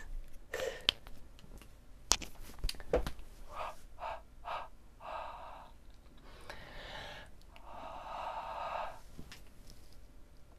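Breathy, stifled giggling and exhaling close to the microphone: three short puffs of breath, then three longer breaths out. A few sharp clicks come in the first three seconds.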